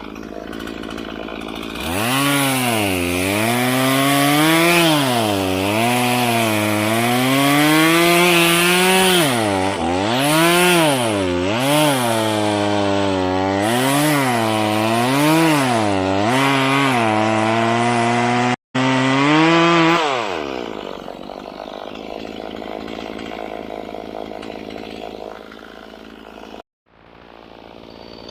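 Chainsaw cutting wood: the engine note rises and dips about once a second as the chain bites and frees. It winds down about twenty seconds in.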